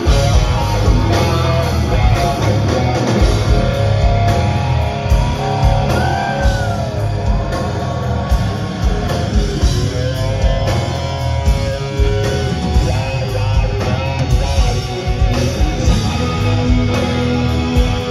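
Live rock band playing loudly: electric guitars over bass and a steady drum beat.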